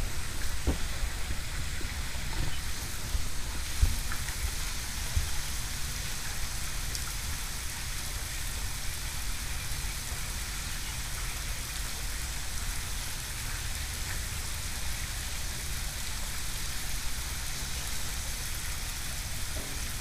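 Steady outdoor ambience: an even hiss with an uneven low rumble underneath, and a few faint knocks in the first few seconds.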